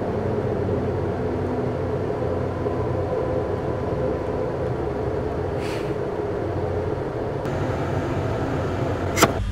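Steady low rumbling drone with a faint hum running through it. There is a short hiss a little past halfway and a sharp click near the end.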